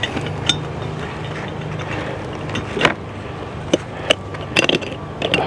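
Honey bees humming around an open hive, with a scattered series of sharp clicks and knocks from a hive strap's buckle being handled.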